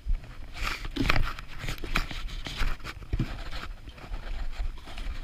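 Footsteps crunching in snow at an uneven walking pace, with a low rumble of handling or wind on the microphone underneath.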